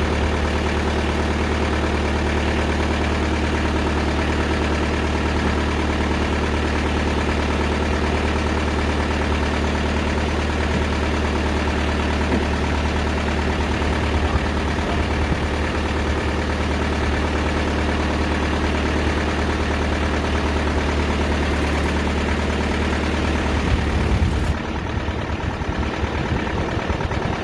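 Diesel engine of a TimberKing 2000 band sawmill running steadily while it drives the band blade. About 24 seconds in, the sound drops in level and turns less even.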